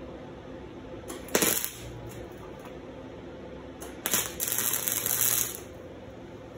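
Electric arc welding on steel chain links: two bursts of the arc, a short one about a second in and a longer one of about a second and a half starting around four seconds in.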